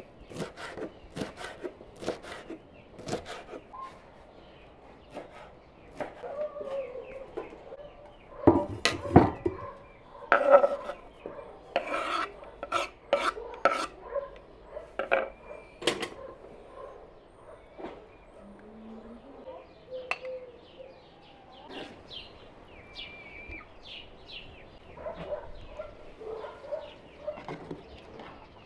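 A knife chopping fresh dill on a wooden cutting board, a quick run of strikes about three a second. Later come clinks and knocks of a ladle, pot and plate as soup is served, with hens clucking faintly in the background.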